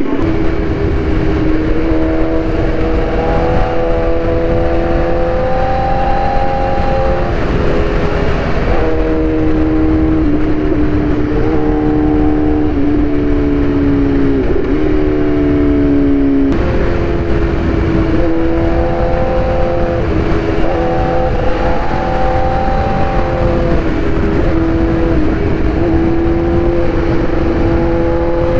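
BMW S1000RR inline-four motorcycle engine under way, its note climbing and dropping again and again with the throttle and gear changes. Heavy wind and road noise lies under it on the bike-mounted microphone.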